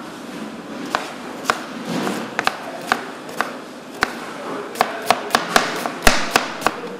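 Kitchen knife chopping an onion on a plastic cutting board, the blade knocking the board in single strokes. The strokes come slowly at first, then quicken to about three or four a second in the second half.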